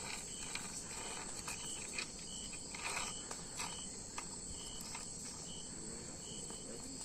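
Insects chirping outdoors: a steady high drone with short, repeated chirps, and a few faint scrapes and a small tick in the background.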